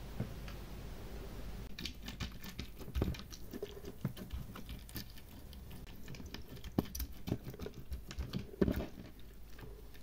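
Glitter slime full of sequins and beads being pressed and stretched by hand: a quick run of small sticky pops and clicks that starts about two seconds in, with a few louder pops among them.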